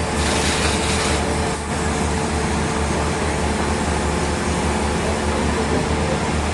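Heavy sawmill machinery running steadily, with a deep hum, a faint steady tone and a louder hiss for about the first second.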